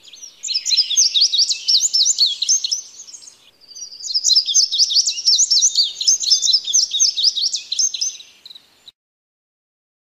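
A flock of house sparrows chirping: many quick, overlapping chirps in two long runs with a short break between, cutting off suddenly near the end.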